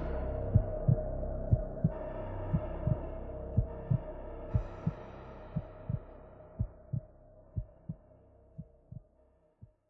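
Closing soundtrack: a low double thump like a heartbeat, about once a second, under a held chord that gains higher notes about two and five seconds in, all fading out.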